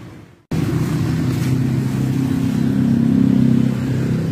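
A small engine running steadily with a low hum, which cuts in after a brief silent gap about half a second in.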